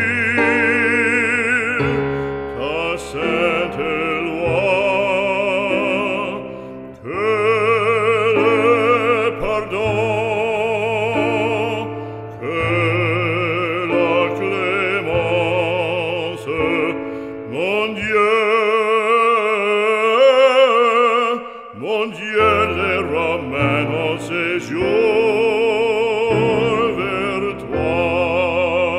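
Operatic singing with orchestral accompaniment: a trained voice with strong vibrato over sustained low strings.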